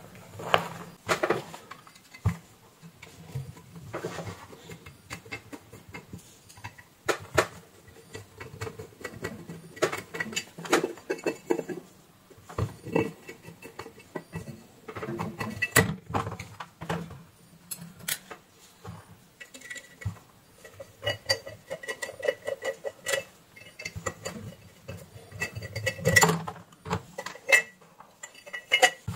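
Plastic CCTV camera housing being taken apart by hand: irregular clicks, taps and scrapes of a screwdriver, plastic parts and cable connectors handled on a workbench.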